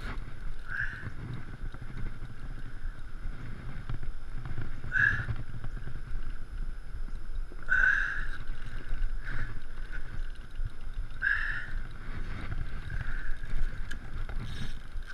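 Water sloshing against the shore and wind on the microphone, with brief louder sounds about every three seconds.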